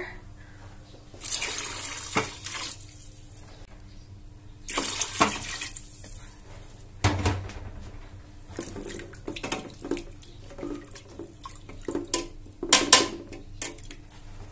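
Water poured from a mug into a large aluminium stock pot of broth, in two pours of about a second and a half each. Then a soft thump and clinks and scrapes of a spoon in the pot.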